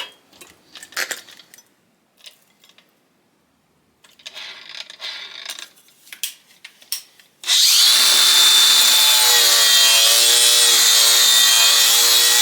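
Clicks and knocks of a paint-stripping disc being fitted to a grinder. About seven seconds in, the grinder starts and runs loud and steady with a whining hum, stripping paint off the creeper's metal frame down to bare metal.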